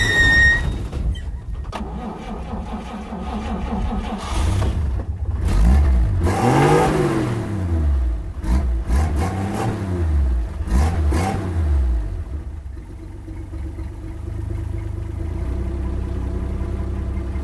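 A motor-vehicle engine revving up and falling back several times, its pitch rising and dropping in a series of swells, then running more steadily over the last few seconds. A brief high tone sounds right at the start.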